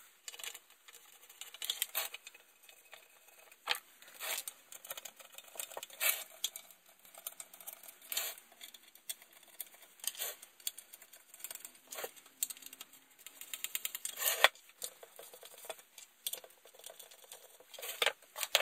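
Irregular light clicks and clinks of small metal parts and tools being handled, with a few short runs of quick clicking.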